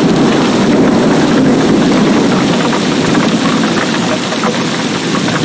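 Heavy rain pouring steadily, a dense patter of drops over a strong, even low rumble.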